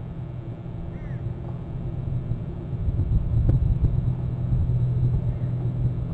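Low steady rumble that gets louder about halfway through, with a short, arched, high bird call about a second in and a fainter one near the end.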